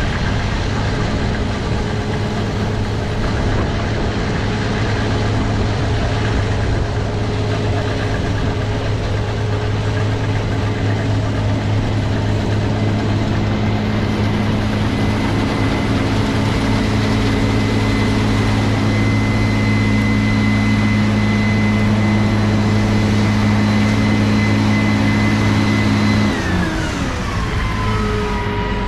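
Large diesel harvest machinery running steadily at high speed, an engine drone with a high-pitched whine over it. Near the end the whole sound winds down in pitch and settles at a lower, slower run.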